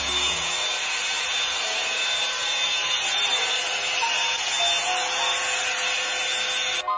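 Revlon One-Step hair dryer running, a steady airflow hiss that cuts off suddenly near the end.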